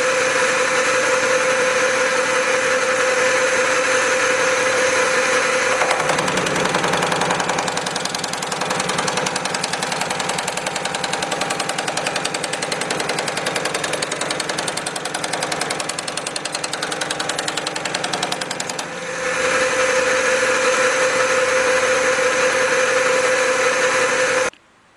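Pullmax reciprocating sheet-metal machine running on long stroke and slow speed, its beading dies stroking rapidly and steadily. From about six to nineteen seconds in, the sound turns heavier and lower as a sheet-metal sample is fed between the bottomed-out dies to roll in a bead. The machine sound stops abruptly near the end.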